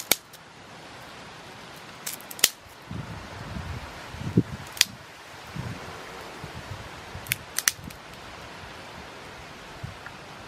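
Small wood fire of dry twigs crackling, with a few sharp, irregular pops over a soft hiss, and some rustling of sticks near the middle.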